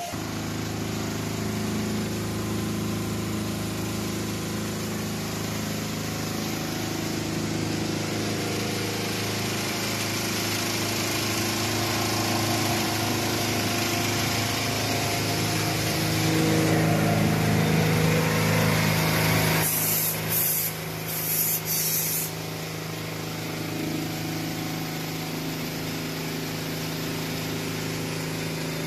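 Richpeace multi-needle quilting line running: a steady mechanical hum of motors with a noisy clatter of the needle mechanism. A few brief high hisses come about two-thirds of the way through.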